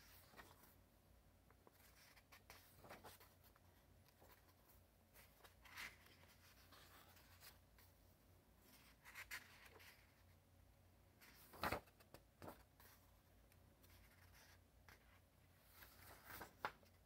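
Sketchbook paper being handled and its pages turned: quiet, scattered rustles and flicks of paper, with a sharper flick a little past the middle.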